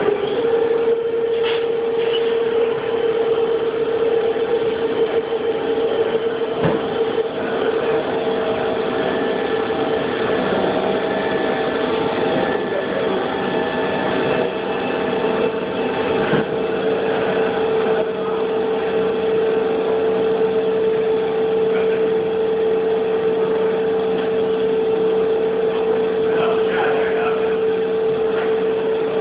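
Haas CNC machine running, with a steady high whine that sets in sharply at the start and holds, over a constant machine noise.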